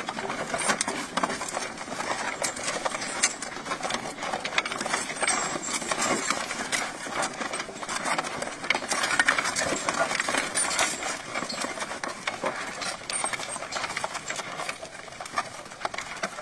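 Horse-drawn potato planter rattling steadily as it is pulled along: its cup elevator chain and metal parts clatter, with many small knocks as seed potatoes are lifted from the hopper.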